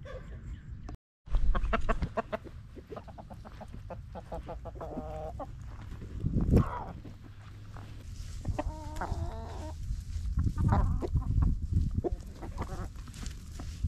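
Chickens clucking while they forage, with scattered scratching and rustling clicks through leaves and compost. A few drawn-out calls stand out about five and nine seconds in, and the sound cuts out briefly about a second in.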